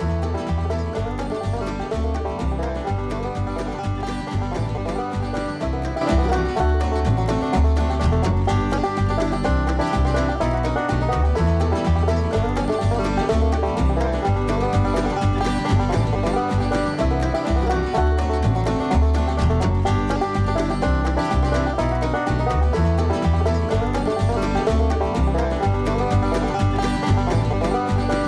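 Music with a steady, regular beat and plucked strings, getting louder about six seconds in.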